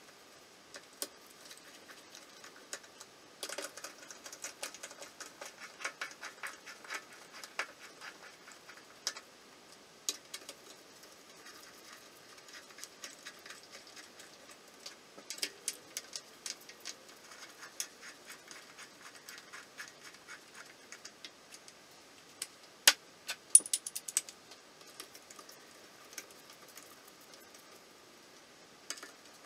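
Hand socket ratchet clicking in quick runs as crankcase bolts are run down hand tight, with a few louder metal clicks about three-quarters of the way through.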